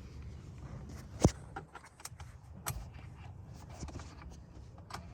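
Scattered clicks and knocks of tools and car parts being handled, with one sharp knock about a second in, over a low rumble.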